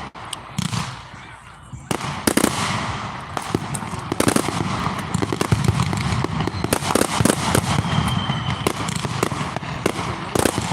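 Fireworks going off in a rapid, dense string of crackling pops and bangs, thinner for the first two seconds and then nearly continuous.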